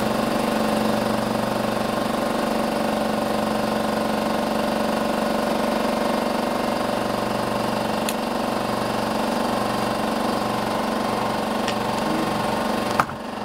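A small engine running steadily at constant speed, with a couple of faint clicks. Near the end comes a sharp knock and the sound briefly drops away.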